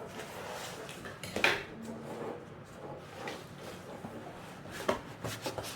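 Gift parcel being unpacked by hand: scattered rustling and light knocks of objects being handled, with a sharper knock about a second and a half in and a cluster of clicks near the end.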